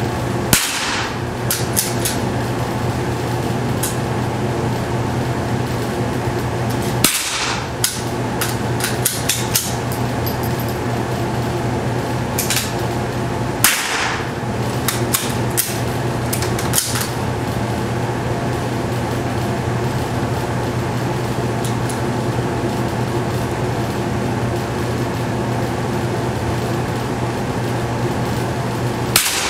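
Tikka T1X .22 LR bolt-action rifle fired four times, about six to seven seconds apart and then after a longer pause near the end. Each shot is a sharp crack with a short ring, and the first three are followed by lighter clicks of the bolt being worked. A steady fan-like hum runs underneath.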